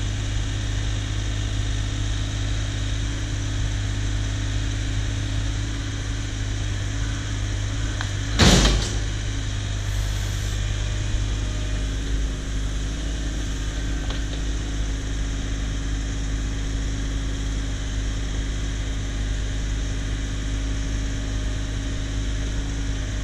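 Cat 304 compact excavator's diesel engine running steadily, with one loud knock about a third of the way through.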